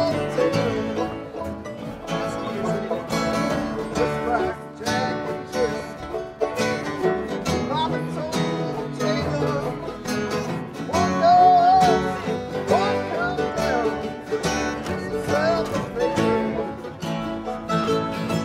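Acoustic bluegrass string band playing a song, with banjo, mandolin and upright bass among the strings.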